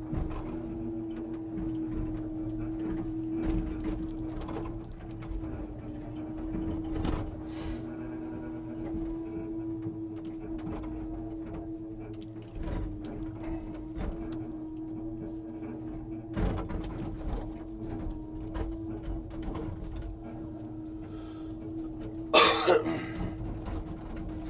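Scania timber truck's engine running steadily to drive the log-loading crane, with scattered knocks and clunks of crane and log handling, and one short loud burst of noise a little before the end.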